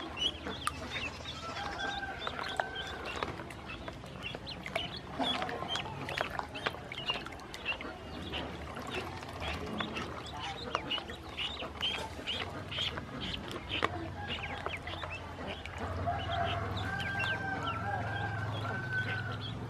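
Ducklings peeping continually with short high calls while dabbling and splashing in a shallow basin of water, with many small wet clicks. A longer, lower call comes in about two seconds in and again near the end.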